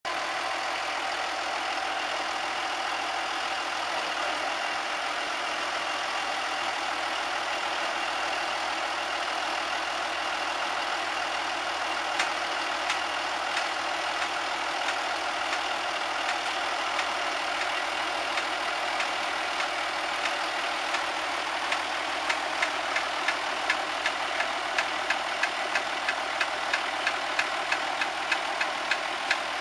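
Massey Ferguson 6280 tractor's engine running steadily while its hydraulics tip a loaded trailer. About halfway through, sharp ticks begin now and then, settling into a regular tick about twice a second near the end.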